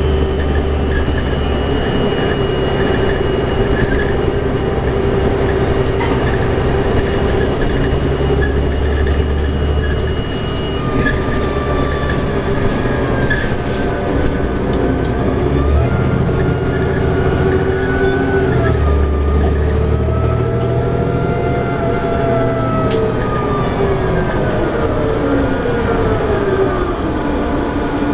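Cabin sound of a 2011 New Flyer D60LFR articulated diesel bus on the move, with its Cummins ISL9 engine and Allison B500R automatic transmission. A steady low drone steps up and down in strength, and in the second half a driveline whine rises and falls in pitch as the bus speeds up and slows.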